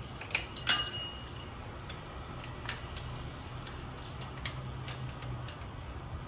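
Metal hand tools clinking against the motorcycle's metal parts while an Allen bolt is undone: two sharp clanks about half a second in, the second one ringing briefly, then a scatter of light ticks.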